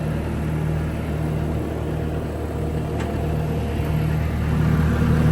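Bobcat T630 skid steer's diesel engine running steadily at idle, growing a little louder about four seconds in, with one faint click about three seconds in.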